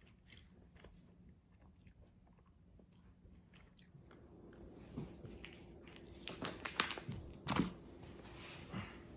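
Crunching and chewing of a tanghulu, a fruit skewer with a hard sugar glaze: faint scattered crunches, then louder sharp cracks and crackles over the last few seconds, with a low hum behind them.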